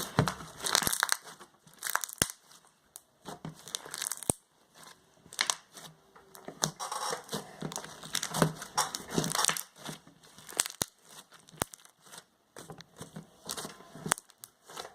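Glue slime being squeezed and worked by hand, making irregular crackling clicks and small popping air bubbles.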